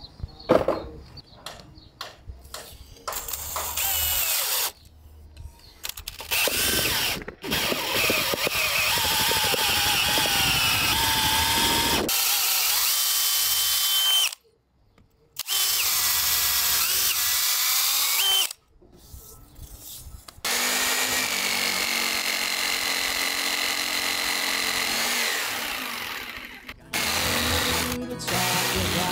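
Cordless drill boring holes into a wooden boat rail, running in several long bursts with short pauses, its motor whine rising and falling as the bit cuts. Near the end a jigsaw starts on the rail, with a fast rhythmic cutting sound.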